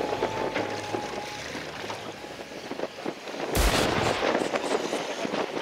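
Wind rushing over the microphone and choppy sea slapping against a small boat, with a crackle of small splashes and ticks, and a sudden loud blast about three and a half seconds in, like a gust hitting the microphone or the hull striking a wave.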